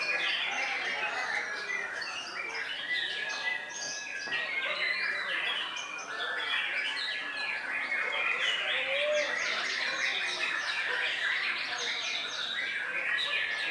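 White-rumped shama (murai batu) singing continuously in a dense stream of overlapping whistles and quick chattering phrases.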